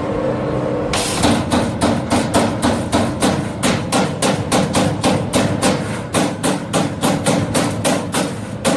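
32-station CNC hydraulic turret punch press punching sheet metal. Rapid, evenly spaced strokes, about four or five a second, start about a second in over a steady hum.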